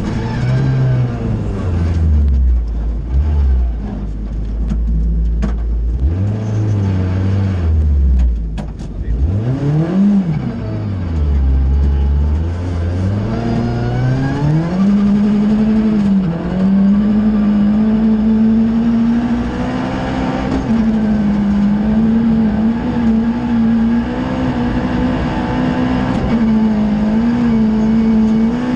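Ford Fiesta R2 rally car's engine heard from inside the cabin: it runs at low revs for the first several seconds and revs up and back down once about ten seconds in. Around fifteen seconds in it climbs to high revs and holds there, with brief small dips, as the car is driven hard.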